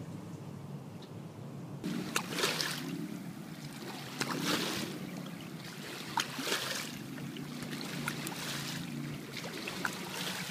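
Boat wake washing up against a weedy river bank in surges about every two seconds, starting about two seconds in, over the steady low hum of a motorboat's engine running close by.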